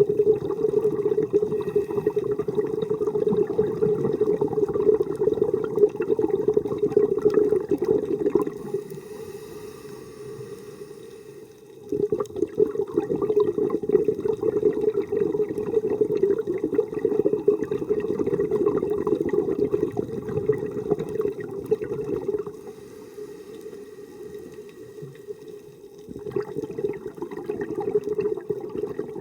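Rushing, gurgling water in long loud stretches that fade to quieter spells about a third of the way in and again about three-quarters of the way in.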